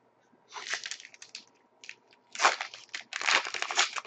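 Trading card pack wrapper being crinkled and torn open, in a run of short crackly rustles that come thicker and louder in the second half.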